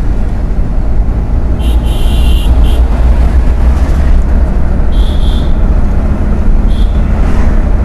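Car engine running and road rumble heard from inside the cabin while driving, a steady low drone. A few brief high-pitched sounds come through about two, five and seven seconds in.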